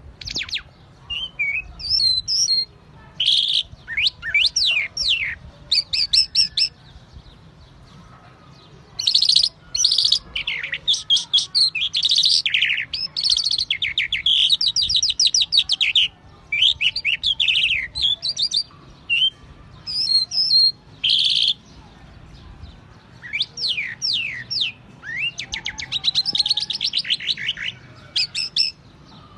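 A songbird singing a long, varied song of fast trills, rattles and sweeping whistled notes, in phrases broken by short pauses.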